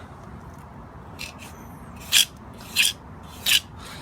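Three short scrapes on concrete, about two-thirds of a second apart, near the end.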